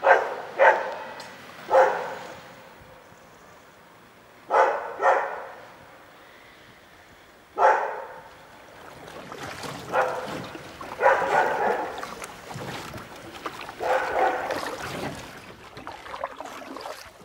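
A dog barking, with the barks ringing on after each one. At first the barks come singly or in pairs a few seconds apart. From about halfway they come closer together.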